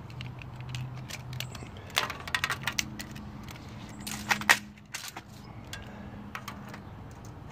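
Steel tape measure blade clicking and rattling against a bench's wooden slats and iron straps: a few sharp clicks about two seconds in and a tighter cluster just after four seconds, over a faint low hum.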